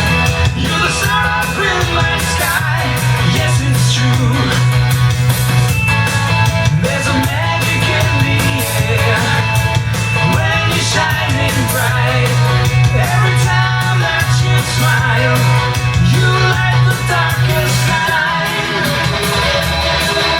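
Rock song with singing, guitar and a strong, steady bass line, played back over a hi-fi system of graphic equalizer, amplifier and three-way loudspeakers as a sound test.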